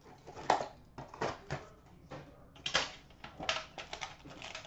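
Irregular clicks, taps and rustles of a trading card box and its packaging being handled by hand.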